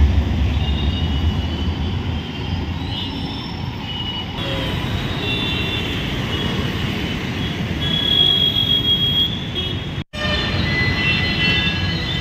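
Street traffic noise of a jammed road on wet tarmac: many idling and creeping engines make a steady rumble, with short high-pitched horn beeps here and there. The sound breaks for an instant about ten seconds in.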